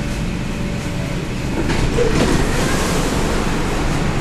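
Steady rumble and hiss of an MTR K-Train carriage interior as the train reaches its terminus. The noise grows a little louder about halfway through.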